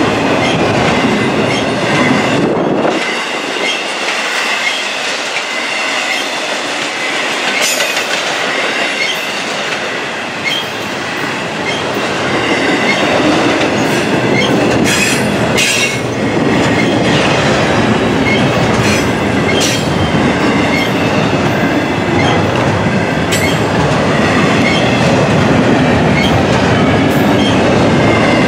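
A long intermodal freight train's container and trailer cars rolling past close by: steel wheels rumbling and clacking over the rail joints, with a few sharp metallic clanks.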